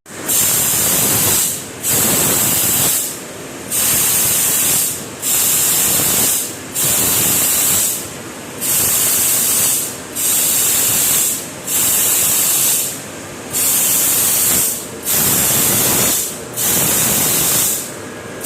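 A 3 kW CNC laser machine's cutting head hissing with a jet of assist gas. The gas switches on and off in regular bursts, about a second long with short gaps, roughly twelve times, as the head works its marking passes.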